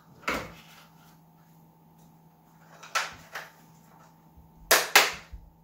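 A few sharp clicks and knocks of hard plastic parts and connectors being handled in the battery area of a Traxxas X-Maxx RC truck chassis: one early, two close together around the middle, and a louder pair of clacks near the end.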